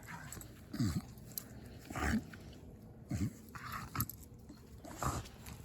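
A dog growling playfully in short, low growls about once a second, each dropping in pitch, while mouthing and biting at play.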